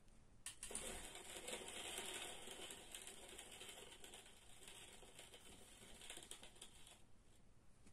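Bicycle freewheel ratchet spinning, its pawls ticking in a fast, rustling run that starts about a second in and dies away near the end. The owner takes this rustling sound to mean the ratchet is worn out and will last only another 15–20 km despite fresh silicone lubricant.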